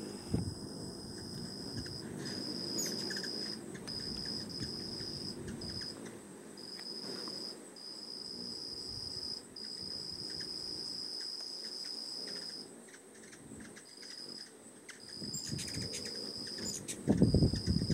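Insects trilling in one steady high-pitched tone, held for a second or a few at a time with short breaks between. A few loud low thumps near the end.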